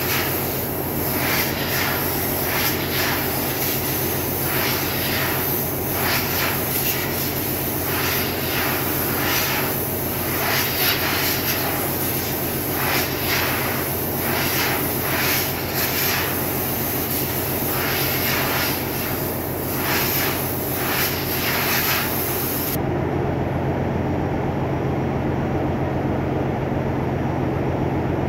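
Compressed-air blow gun hissing in repeated short bursts as it blows out a lube oil filter element, over the steady drone of running engine-room machinery. The hissing stops a few seconds before the end, leaving only the drone.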